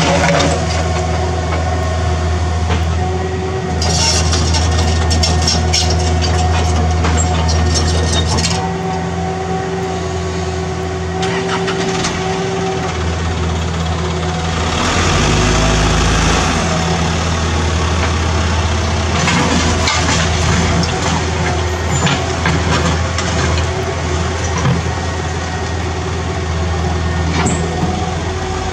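Diesel engines running steadily, with stretches of rubble clatter and scraping, then a loaded dump truck's diesel engine revving about halfway through as it pulls away.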